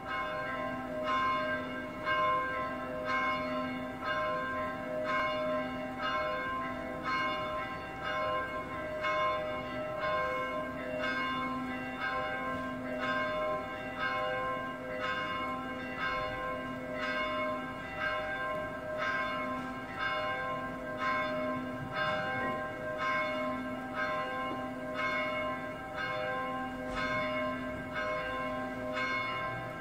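Two church bells rung a distesa (swinging full circle), their strokes following one another steadily with the tones ringing on between strikes: the noon peal.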